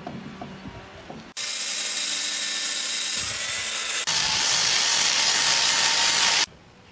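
Corded electric chainsaw starting about a second and a half in and cutting into a wooden log, then, after an abrupt cut about four seconds in, an angle grinder with a high whine grinding the wood; it stops suddenly near the end.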